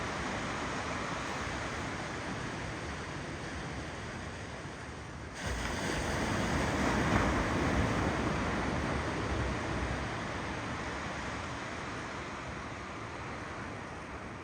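Ocean waves rolling onto a shore as a steady rush of surf. About five seconds in it jumps suddenly louder as a wave surges in, then slowly fades.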